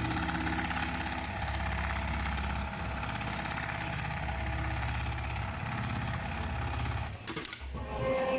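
CNC automatic stitching machine running at speed: a fast, steady stitching rattle over a low motor hum, stopping about seven seconds in.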